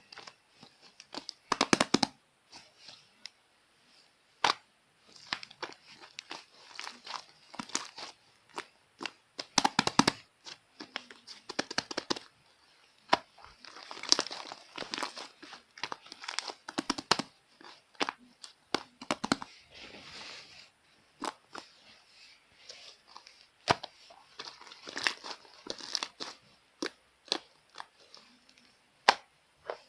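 Slime being squeezed and stretched by hand, giving irregular crackling and popping clicks with short squishy bursts. The loudest bursts come about 2 seconds in and about 10 seconds in.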